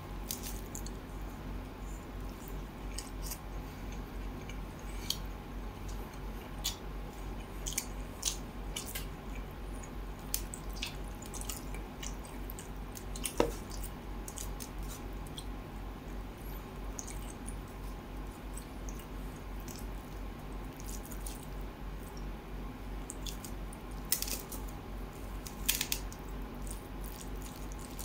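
Fingers kneading rice into a wet coconut fish curry on a steel plate: soft, irregular wet squishes and clicks, with one sharper tap about halfway through. A steady low hum runs underneath.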